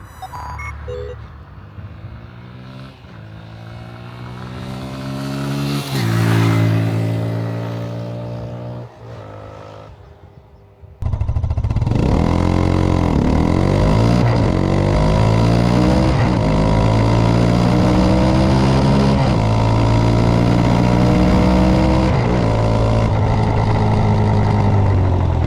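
Italika DM150's 150 cc single-cylinder engine accelerating up through the gears, its pitch climbing and dropping back with each upshift. For the first half it passes by, growing louder to a peak about six seconds in, then fading. After a sudden cut about eleven seconds in it is heard close up and louder, still revving up and shifting repeatedly.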